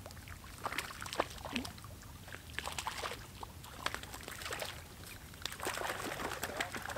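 A small hooked fish splashing and thrashing at the water's surface close to the bank as it is played on a fly rod: a quick, irregular run of small splashes.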